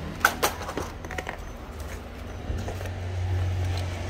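Sharp plastic clacks of power-tool battery packs being handled and set down, several in the first second and a half, the two loudest close together near the start, over a steady low hum.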